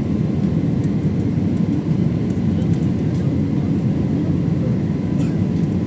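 Airliner cabin noise during descent for landing: a steady low rumble of engines and airflow, with a faint steady whine above it.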